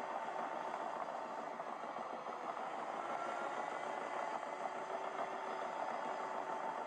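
Liebherr PR 736 crawler dozer's diesel engine running steadily as it tows a loaded Caterpillar TS180 scraper through heavy ground.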